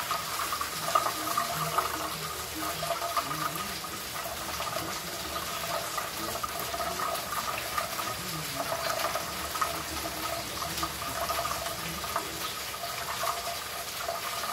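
Kitchen tap running steadily, its water stream splashing onto a plate, with irregular splashes from a budgerigar bathing under it.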